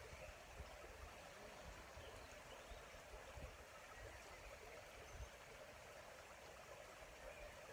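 Faint, steady rushing of a shallow creek running over stones.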